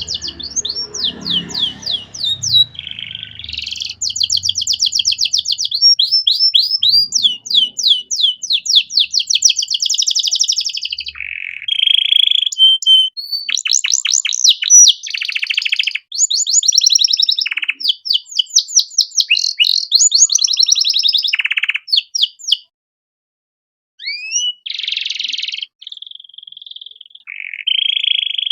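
Domestic canary singing a long, fast song of rapid trills and repeated chirps, changing phrase every second or two. The song breaks off for about a second and a half near the end, then resumes.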